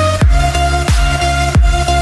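Electronic dance music with a heavy, deep kick drum that drops in pitch, about one beat every two-thirds of a second, under held synth notes.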